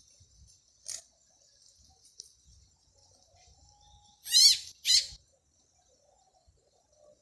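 A frog's distress scream: two loud, shrill, wavering cries about half a second apart, as the snake seizes it. A short click comes about a second in, over a faint steady high hiss.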